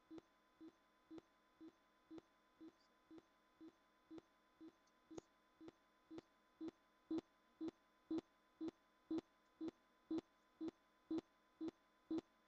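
Short electronic beeps repeating evenly, about two a second, each a brief low-pitched tone with a click. They get louder about halfway through.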